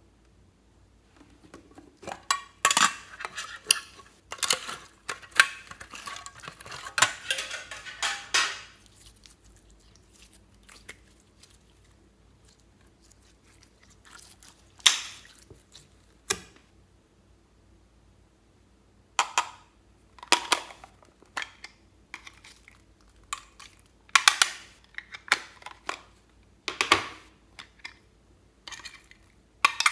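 Fluffy slime being squished and mixed by hand, crackling with small pops for several seconds early on, then scattered short squelches and clicks.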